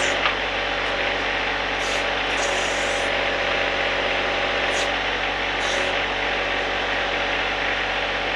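John Deere 1025R sub-compact tractor's three-cylinder diesel engine running steadily, with a few short hisses.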